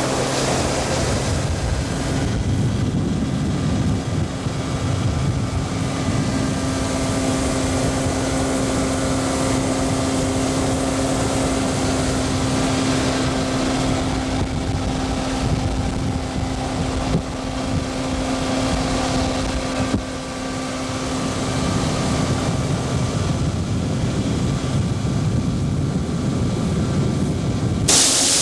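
Motorboat engine running at a steady speed, with wind blowing on the microphone. The engine's steady tone fades a little after about twenty seconds.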